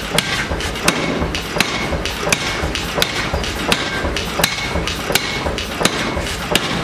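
Steady hammer blows on a spring-loaded steel forging die clamped around a red-hot bar, about ten strikes evenly spaced roughly 0.7 s apart. Some blows leave a short metallic ring.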